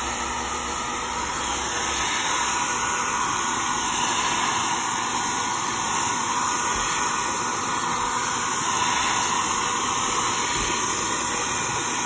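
Hand-held hot-air dryer blowing steadily, a constant rushing hiss, drying a just-cleaned graphics card of any water left from washing.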